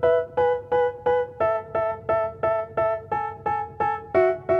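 Background music: a keyboard repeating short struck chords about three or four times a second, changing chord about a second and a half in and again near the end.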